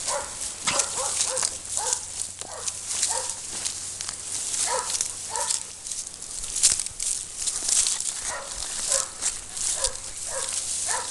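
A dog barking in short, falling barks, about a dozen in two runs with a pause of a few seconds between them. Underneath is the crackle and rustle of footsteps through dry grass.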